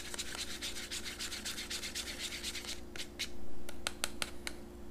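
A stir stick scraping rapidly and rhythmically around the inside of a small cup, mixing water into gold acrylic paint. A bit under three seconds in the scraping stops, and a few separate light clicks follow.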